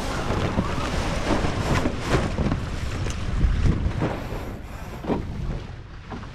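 Wind buffeting the microphone over water rushing and splashing past the hulls of a sailing catamaran, with uneven slaps of spray and waves.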